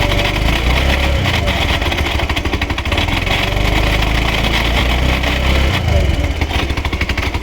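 Old scooter engine running steadily with a fast, even rattling beat: the abnormal noise of an engine that has no engine oil.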